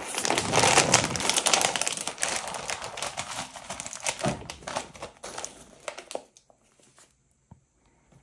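Foil-lined snack bag crinkling as it is pulled open and handled; the crinkling stops about six seconds in.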